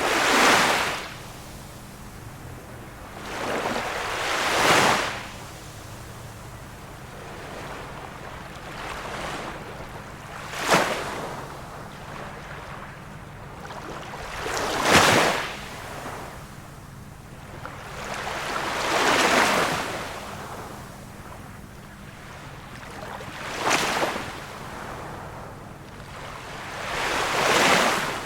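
Small waves of a calm sea breaking on the shore, about one every four to five seconds. Some arrive as short sharp slaps and others as longer washes.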